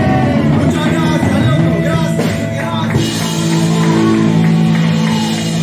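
Live punk rock band playing electric guitars and drums, with a singer's voice over them.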